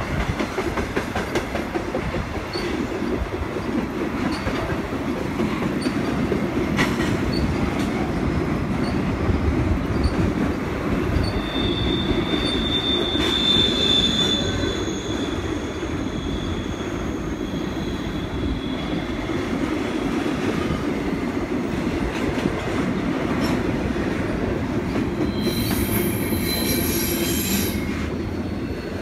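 CN double-stack container freight train rolling past, a steady rumble of wheels on rail with regular light clicks. A high wheel squeal whines about halfway through and again near the end.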